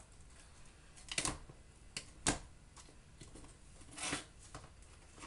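Cardboard retail box being handled and opened by hand: a few short sharp scrapes and taps of cardboard, the loudest about two seconds in, and a longer rustle about four seconds in.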